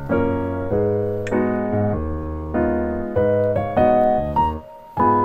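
Background music: soft piano chords changing about every half second, with a brief drop-out near the end.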